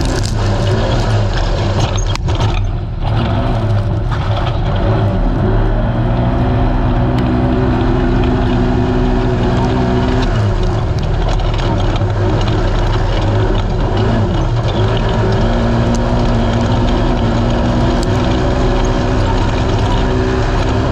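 Engine of a naturally aspirated Polaris RZR race UTV running hard at steady high revs under racing load. It lifts off briefly about three seconds in, and the revs drop for a few seconds midway before climbing back. Underneath run a steady rush of noise and scattered knocks from the car being driven fast over rough ground.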